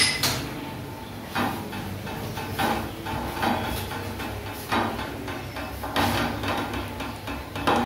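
A few light knocks and clinks of steel cookware on a gas stove, spaced a second or so apart over quiet kitchen room tone.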